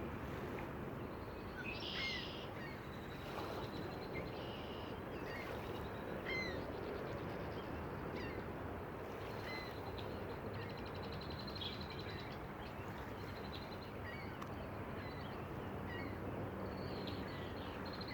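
Birds calling with short, scattered chirps and a few brief trills over a steady outdoor rushing noise.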